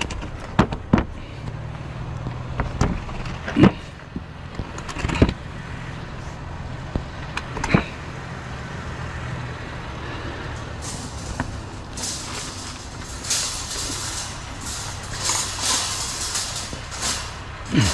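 Scrap metal being pulled from a pile: several sharp clanks in the first half, then a stretch of scraping and rattling. A vehicle engine idles steadily underneath.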